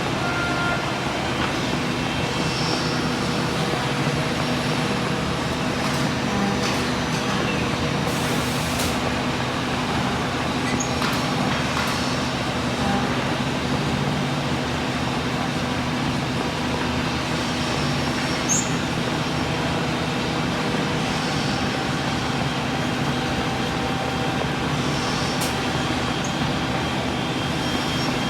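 Woodworking CNC drilling and milling machine running, a steady motor and spindle noise with a few short clicks and one brief high squeak about two-thirds of the way through.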